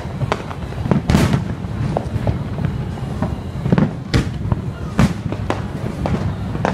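Aerial fireworks shells bursting: a run of sharp bangs, the loudest about a second in and again around four and five seconds in, with smaller cracks between them.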